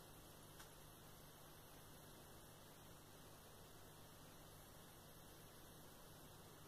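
Near silence: room tone with a faint steady low hum and hiss, and one faint click about half a second in.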